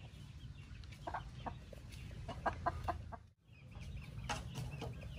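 Chickens clucking faintly in the background: a run of short calls, with a brief gap a little past halfway, over a low steady rumble.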